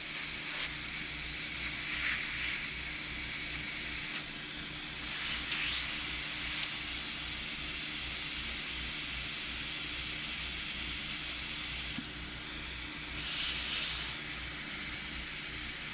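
Compressed shop air, regulated to about 20 psi, hissing steadily as it is blown through the ports of a turbocharger wastegate regulator solenoid valve to clear out moisture and oil, swelling louder a few times.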